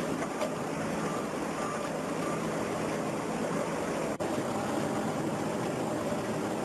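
Heavy stone-quarry machinery running: a steady engine and mechanical din. A few faint short beeps come a second or two in, and the sound drops out briefly about four seconds in.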